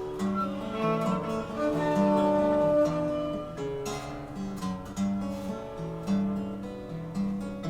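Live instrumental music led by an acoustic guitar, picked and strummed in a steady rhythm, with no singing.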